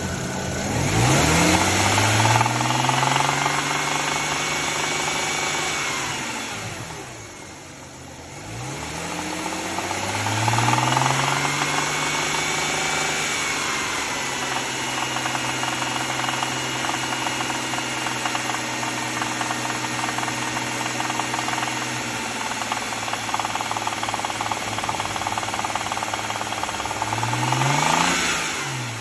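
BMW N54 twin-turbo inline-six revved up from idle and held in the low-to-mid rev range, twice for long stretches and once briefly near the end, with a rattling/knocking sound that the owner says comes only between about 2,000 and 3,000 rpm, strongest at 2,500, and goes away above 3,000. The owner cannot tell whether it comes from the pulleys or the lifters.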